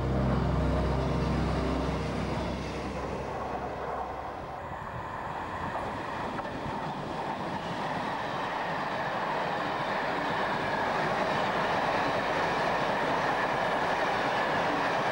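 Passenger train running past on the rails. A low droning hum in the first few seconds gives way to a steady rush of wheel and rail noise that grows louder as the coaches go by near the end.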